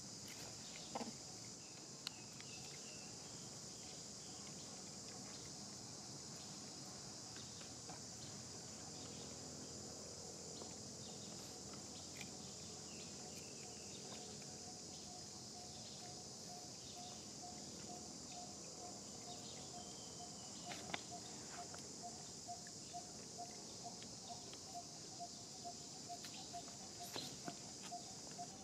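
A steady high drone of insects. From about halfway, a faint mid-pitched note repeats about twice a second, and a few sharp clicks stand out, the loudest about three-quarters of the way through.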